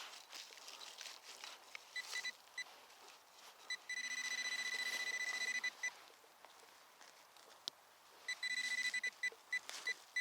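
Nokta Makro Simplex Plus metal detector's target tone: a few short beeps, then a steady high beep held for nearly two seconds about four seconds in, and more beeps with a shorter held tone near the end, the detector signalling buried metal under the coil.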